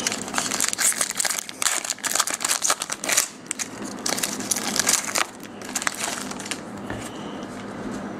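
Trading-card pack wrappers crinkling and rustling as packs are handled and opened, in a quick irregular crackle that is busiest for the first five seconds and then softer.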